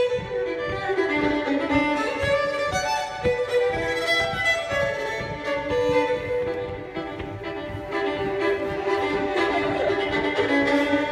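Solo fiddle playing a lively hornpipe in a quick run of bowed notes, with a steady low beat underneath.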